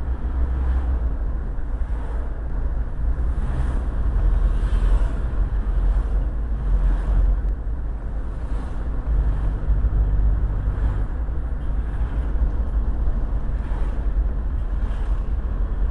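Steady road noise of a moving car heard from inside: a loud low rumble with an even hiss above it.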